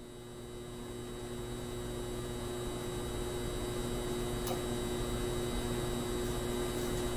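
A steady electrical hum over a hiss, fading in slowly from silence and then holding steady, with a faint click about four and a half seconds in.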